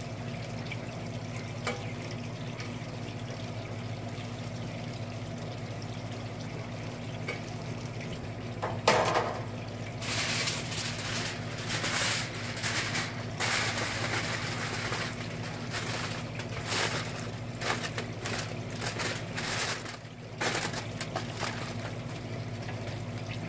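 Aluminium foil crinkling and rustling in a run of sharp, uneven crackles from about 9 s in to about 21 s, as it is folded over a pan of grilled chicken. Under it, a steady hiss and low hum, with one light click about 2 s in.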